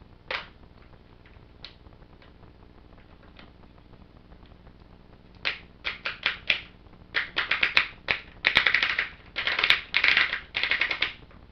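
Handling of a large plastic Transformers toy: one sharp click early, then a quick run of short plastic clicks and crackling that gets denser over the last five seconds or so.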